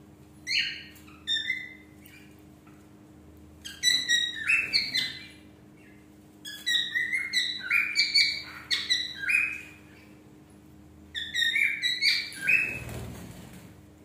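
Budgerigar chirping in quick bouts of sharp, pitch-sliding calls, four bouts with short pauses between, while being hand-fed formula from a syringe.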